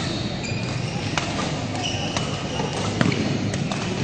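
Badminton rally: several sharp cracks of rackets striking the shuttlecock, with short squeaks of court shoes on the floor near the start and about two seconds in, over the steady murmur of a busy sports hall.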